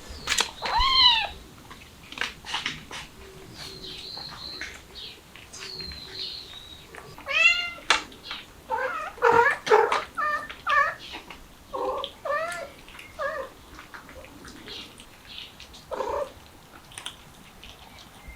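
Mother cat and kittens meowing repeatedly: high, thin kitten mews and lower, louder meows, bunched in a run of calls in the middle, with a few scattered clicks between.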